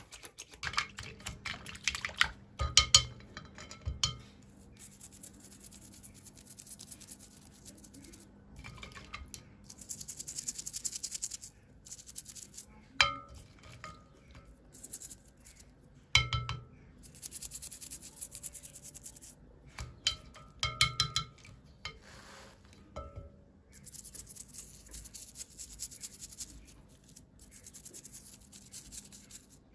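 Small plastic toy pieces and packaging being handled: scattered sharp clicks and clinks, with several stretches of scratchy rustling or scraping.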